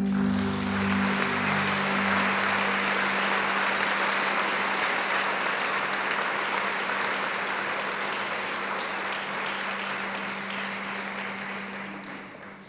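Audience applauding in a hall as the last held notes of a song for voice and piano die away, with a low steady tone lingering underneath; the applause fades out near the end.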